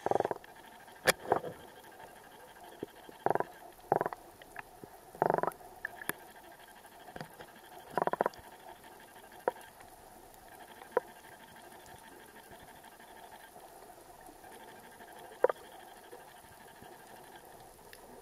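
Muffled underwater recording through a camera housing: scattered short water sloshes, most of them in the first half, and a few sharp clicks near the housing, over a faint steady hiss.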